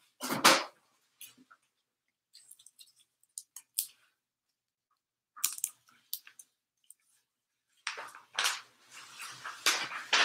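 Oil paint tubes and palette being handled: scattered clicks, crinkles and short squishy rustles, with quiet gaps between and a longer stretch of rustling near the end.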